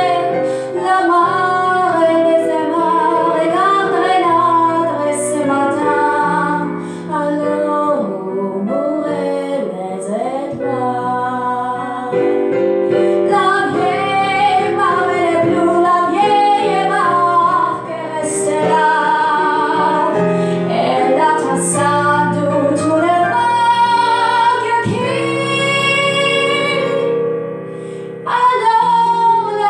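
A woman singing into a microphone, accompanied on a digital piano. Near the end she holds one long note.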